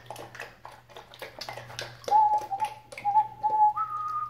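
Airedale Terrier puppies' claws ticking and clicking on a tiled floor as they scramble about. From about two seconds in, a high, thin puppy whine is held in short stretches and rises in pitch near the end.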